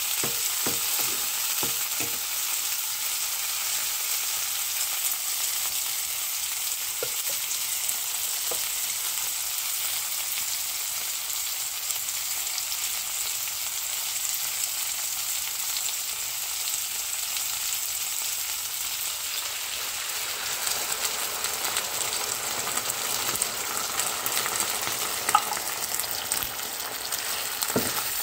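Tomatoes, green peppers, onion and garlic sizzling in oil in a nonstick frying pan, with a steady hiss. A wooden spatula stirs and knocks against the pan a few times in the first couple of seconds and again around eight seconds in. The sizzling grows louder and busier in the last several seconds.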